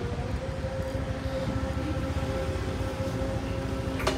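Street background noise: a low rumble with a steady droning hum running through it, and a single sharp click just before the end.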